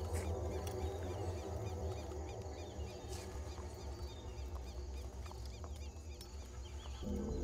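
Rural outdoor ambience: many small high chirps from small creatures repeat over a low steady rumble. Near the end a low pitched layer comes in.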